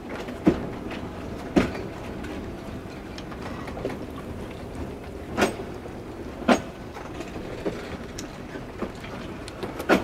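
Narrow-gauge train rolling slowly on the rails, a steady rumble with clacks from the wheels crossing rail joints. The clacks come in pairs about a second apart, one pair every four seconds or so.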